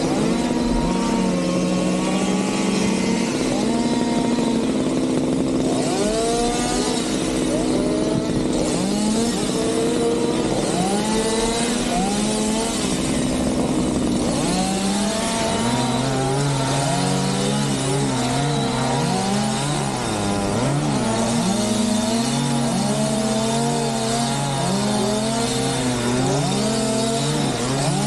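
Engines running: a steady engine drone with a second engine's pitch sweeping up and down over it again and again, like throttle being blipped. About halfway through, the drone shifts to a lower, heavier note.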